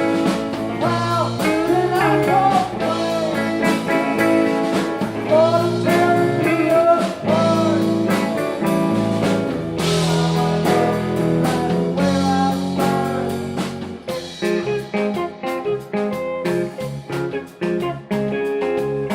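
Blues-style music led by guitar, with bending, sliding melody notes over a full backing. About two-thirds of the way through it thins out to sparser, choppier guitar notes.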